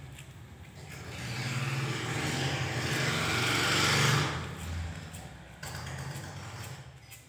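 A motor vehicle's engine noise swelling over a few seconds and dropping away sharply about four seconds in, over a steady low hum.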